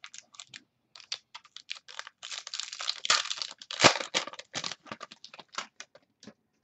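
Trading cards being handled by hand: a run of light clicks and crinkly rustling, densest in the middle, with one sharper knock a little before four seconds in.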